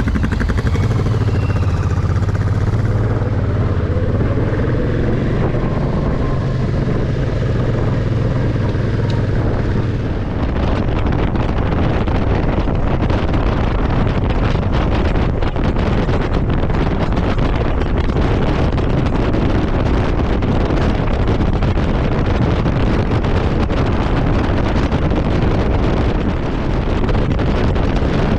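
Motorcycle engine running as the bike gets under way. From about ten seconds in, wind rushing over the microphone at riding speed covers the engine.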